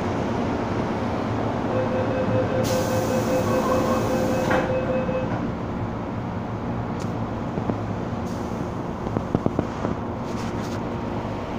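MTR M-Train metro carriage running underground, heard from inside the car: a steady rumble of wheels and running gear. A steady high tone with overtones sounds from about two to five seconds in, and a short run of clicks comes near the end.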